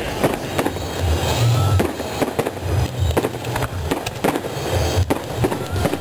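Fireworks display: aerial shells and fountains going off in a rapid, irregular string of bangs and crackles.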